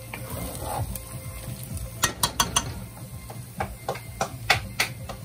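Metal spoon stirring and scraping fried bodi (long beans) and potatoes around a frying pan. From about two seconds in come a run of sharp clicks and knocks as the spoon strikes the pan.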